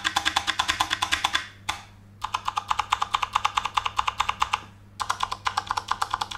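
Cherry MX Board 8.0 mechanical keyboard with Cherry MX Brown switches, typed on fast in three runs of about ten keystrokes a second with short breaks between them. Its typing sound is what the reviewer calls its crunchy ('krenyes') sound.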